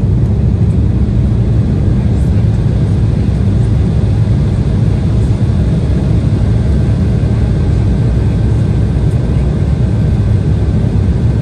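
Steady cabin noise of an Embraer E175 jet on approach, heard from a window seat beside the wing-mounted turbofan engine. A dense, even low rumble of engine and airflow noise runs with no change in level, and a faint thin whine joins about halfway through.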